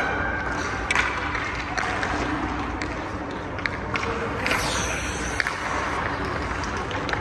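Hockey skate blades scraping and carving on rink ice, with a few short clicks and knocks, over the steady hum of the rink.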